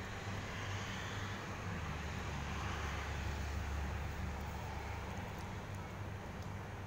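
A low rumble with hiss over it. It swells from about two seconds in, is loudest around three to four seconds, then eases off.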